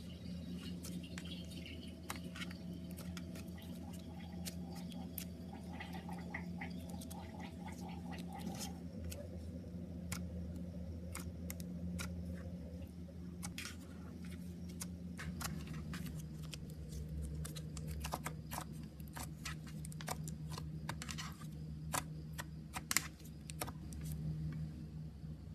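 Hands squishing and stretching slime, giving irregular sticky clicks and pops, over a steady low hum.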